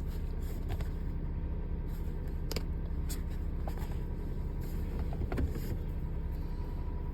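A steady low rumble with a few light clicks and knocks as a wrapped cardboard package is handled.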